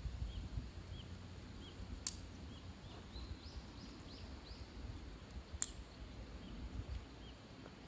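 Short, high bird chirps repeating irregularly over a low rumble, with two sharp clicks, one about two seconds in and one near the middle.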